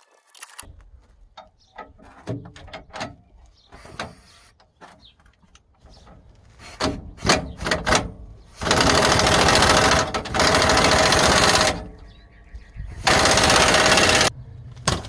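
Metal parts and bolts clinking and knocking, then an impact wrench running two long bursts, the second shorter, driving the differential's mounting bolts tight.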